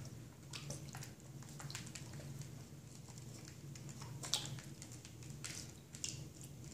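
Light splashing and dripping of water as a young raccoon paws at a fish in a plastic tub of water, in scattered small splashes, the loudest a little past four seconds in. A faint steady low hum runs underneath.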